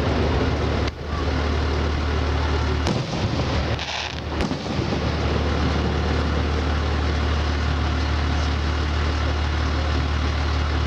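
Aerial fireworks display: a few sharp bangs and some crackling hiss in the first half, over a steady low hum that carries on alone through the second half.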